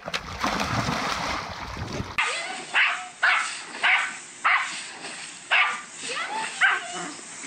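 A rushing noise for about two seconds, then a small white dog barking over and over, about eight short, sharp barks in quick succession. A steady hiss from a garden hose spraying into a pool runs under the barks.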